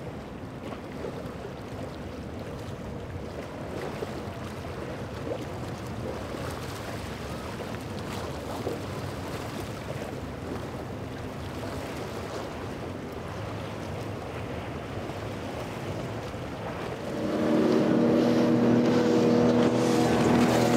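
Steady rush of water and wind with boat engines running in the background. Near the end a boat's outboard engine comes close and gets much louder, running at a steady pitch.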